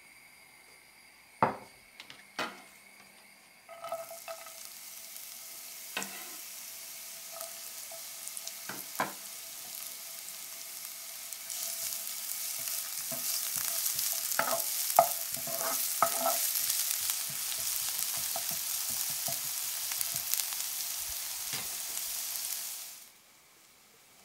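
Chopped onion sizzling in hot oil in a non-stick frying pan, stirred with a wooden spatula that knocks and scrapes against the pan. Two sharp knocks come first; the sizzle starts a few seconds in, grows louder about halfway through, and cuts off suddenly near the end.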